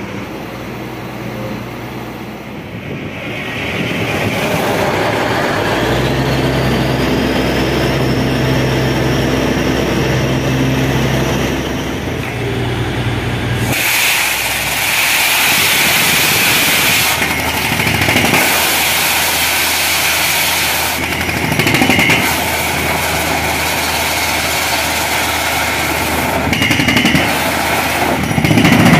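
Truck-mounted borewell drilling rig running: its engine hums steadily, a rising whine comes in about a few seconds in, and about halfway a loud, dense rushing noise suddenly takes over as drilling gets under way.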